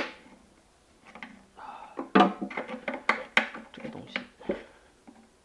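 A sharp crack as the corroded drum tripod of a front-loading washing machine is pried loose, followed about two seconds later by a busy stretch of quick knocks and clinks with ringing, pitched tones.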